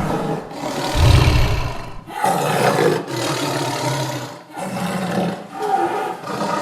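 Tiger roaring in a string of rough, loud calls with short breaks between them, the loudest and deepest about a second in.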